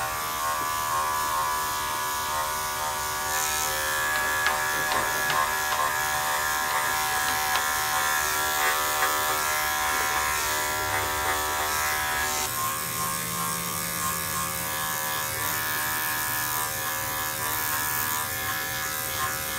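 Electric dog-grooming clippers running with a steady buzz as they shave a matted coat down close to the skin. The hum's tone shifts slightly about twelve seconds in.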